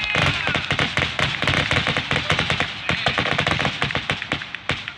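Fireworks finale barrage: many aerial shells and crackling reports go off in rapid succession, several sharp bangs a second overlapping one another. Near the start there are a few short gliding whistles.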